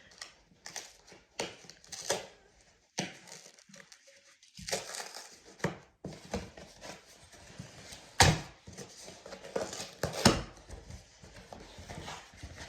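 A small Amazon parcel being opened by hand: irregular tearing, rustling and crinkling of the packaging, with two sharper, louder rips or knocks near the end.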